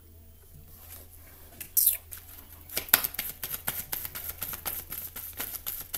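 Tarot cards being shuffled by hand: after a brief swish, a fast, uneven run of crisp card clicks and slaps begins about three seconds in and keeps going.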